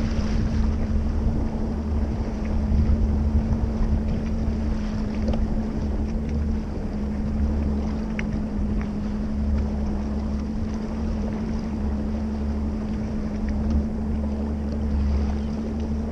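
Bass boat running at speed: a steady outboard engine drone and hum, with water rushing along the hull and wind buffeting the microphone.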